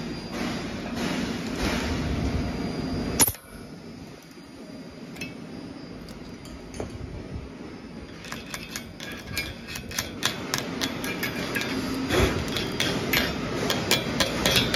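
A short-cycle stud welding gun firing once about three seconds in: a single sharp crack as a 12 mm threaded stud is arc-welded onto 6 mm steel plate, over steady background noise. In the second half, many irregular sharp clicks and taps.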